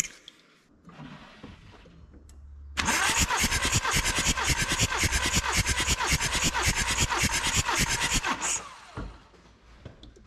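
VW Transporter T5 2.5 TDI five-cylinder diesel cranked on the starter motor for about five seconds, starting about three seconds in, with rapid even compression pulses. This is a compression test, and the reading of about 27 bar is good.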